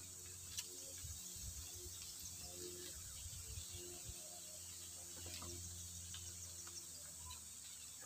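Faint, steady high-pitched insect buzzing, with a soft click about half a second in and a few faint scattered ticks.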